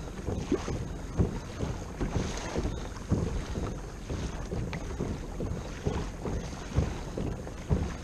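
Wind buffeting the camera microphone in irregular low rumbles, with water washing against a kayak's hull at sea.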